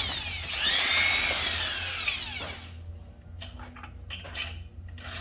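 Handheld power tool running, its whine rising and then falling, cutting off about two and a half seconds in; light knocks and handling follow.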